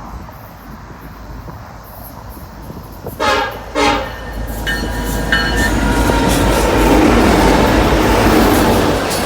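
Diesel freight locomotive horn on a BNSF EMD SD70ACe-led coal train: two short loud blasts about three seconds in, then longer held notes. The rumble of the passing locomotives and train builds after the blasts and stays loud.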